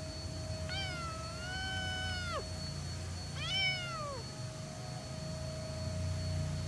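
A feral cat meowing twice: a long drawn-out meow that falls away at its end, then a shorter meow that drops in pitch.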